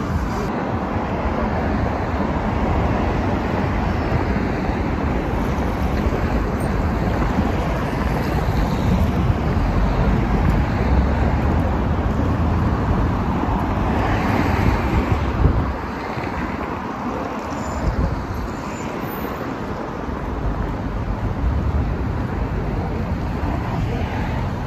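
Busy city street traffic: a steady rumble of passing cars and buses.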